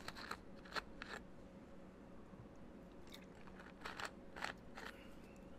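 Faint, sharp clicks at irregular intervals, about ten in all and bunched in small groups, over a low steady room hum.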